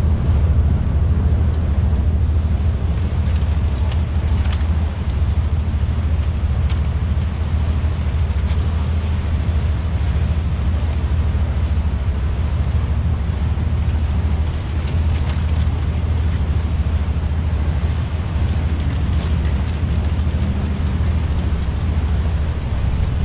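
Motorboat engine droning steadily while under way, with wind buffeting the microphone.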